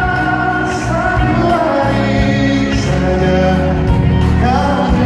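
Live pop band playing with a male singer holding long, drawn-out notes over bass and drums.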